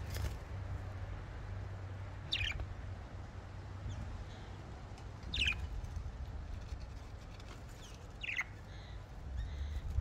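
Budgerigars giving three short, separate chirps that fall in pitch, about three seconds apart, over a low steady rumble.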